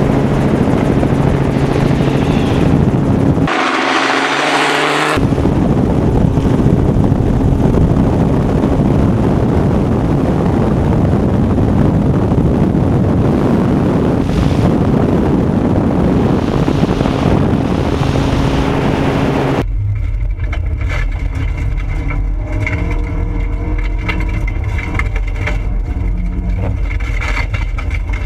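Rally cars on a gravel stage: engines running hard with the rush of tyres and gravel, broken by abrupt cuts between shots, one about three seconds in and another near two-thirds of the way through.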